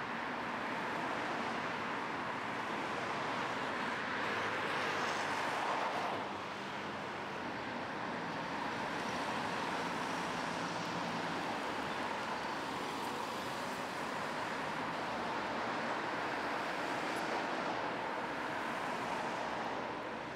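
Steady city road traffic: cars, vans and lorries driving past, with tyre and engine noise blended together. It swells louder for a couple of seconds about five seconds in as one vehicle passes close.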